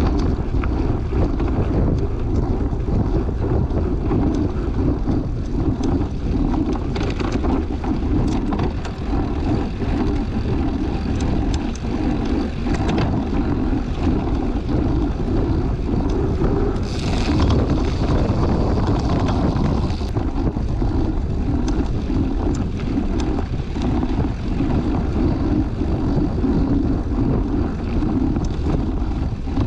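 Steady low rumble with wind buffeting the microphone, as when moving fast outdoors, with a short rush of hiss about 17 seconds in.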